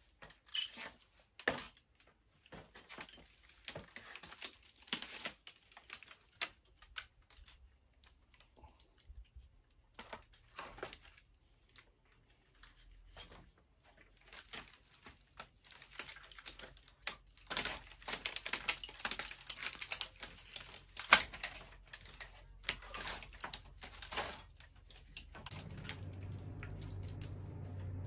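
Dry reed matting crackling and rustling with irregular clicks and taps as a roll of it is handled and spread over timber roof beams, the crackling thickest in the second half. A low steady hum comes in near the end.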